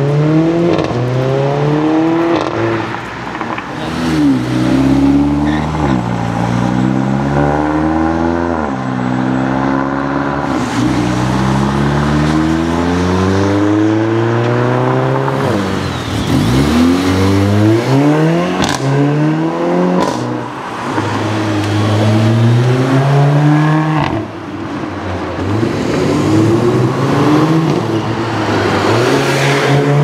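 Mercedes-AMG A45 hatchbacks' turbocharged four-cylinder engines accelerating hard. The engine note repeatedly rises in pitch and drops back at each upshift, several runs in a row, with a few sharp cracks among them.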